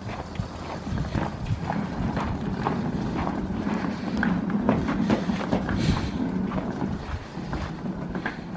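Wheeled suitcase pulled over packed snow and ice, its wheels rumbling and clattering irregularly, with footsteps.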